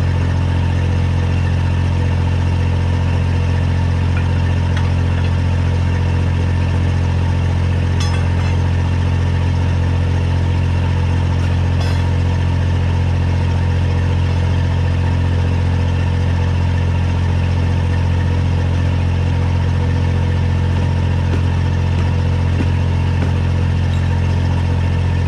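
Mini excavator's diesel engine running steadily at an even speed, with a couple of faint clicks about 8 and 12 seconds in.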